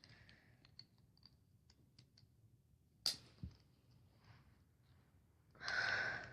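Plastic Rubik's cube pieces clicking as they are pushed back into the cube's core, with a sharper snap about three seconds in and a short, louder scrape near the end.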